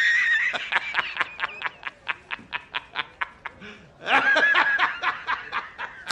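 A man's high-pitched laugh from a meme film clip: a squealing start, then a run of rapid cackles about six a second, then another squealing burst about four seconds in.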